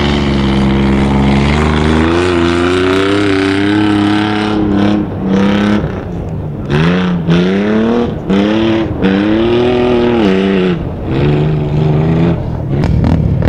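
Sport quad (ATV) engine racing over dirt, its pitch repeatedly climbing under throttle and dropping back several times; the engine sound cuts out shortly before the end.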